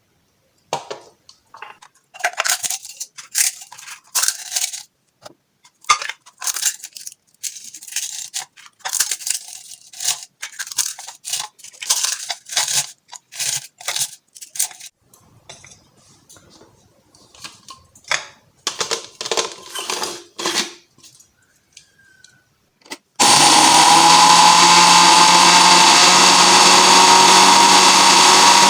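A run of short clicks, taps and rustles from items being handled, then about 23 s in an electric blender starts and runs loud and steady at full speed.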